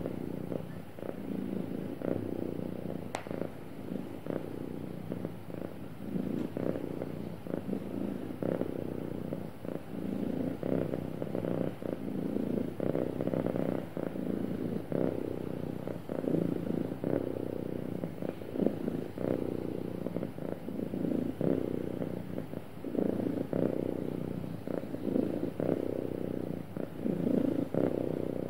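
Domestic cat purring steadily and close up, swelling and easing in loudness every few seconds. There is a single sharp click about three seconds in.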